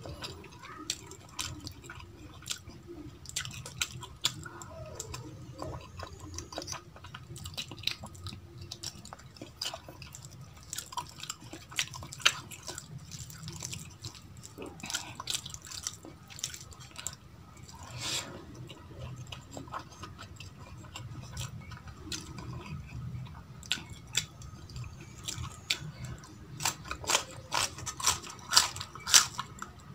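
Close-up eating sounds of rice and vegetables eaten by hand: wet chewing and lip smacks, with fingers squishing rice on a steel plate. The sharp crunches and smacks come more often near the end, when a whole green chilli is bitten.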